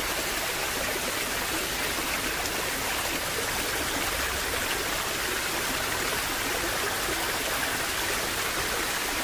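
Steady, unbroken rushing water like a flowing stream, used as the masking sound of a subliminal track, with any affirmations buried beneath it and not heard as words.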